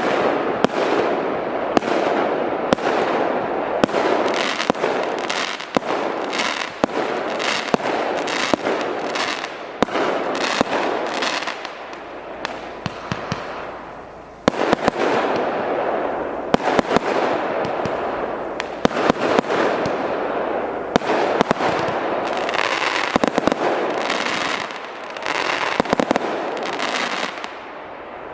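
A 200-shot fireworks cake firing, a rapid, dense string of shots and bursts. It eases off briefly about halfway through, picks up again, and thins out near the end.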